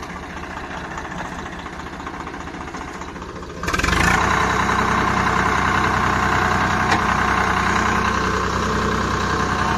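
Swaraj 855 FE tractor's diesel engine running steadily, then suddenly louder a little over a third of the way in and staying there, as it works to pull its loaded trolley stuck in mud.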